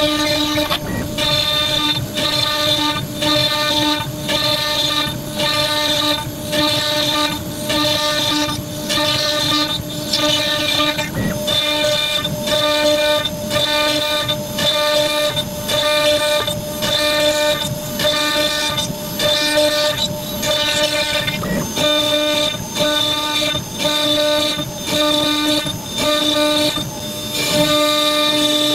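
CNC router running a cut through a wooden board: a steady whine of the spindle and drives, broken by short regular dips, which turns even near the end.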